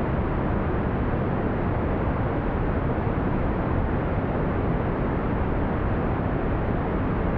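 Smooth brown noise: a steady, deep rushing hiss, strongest in the lows and rolled off in the highs, without change.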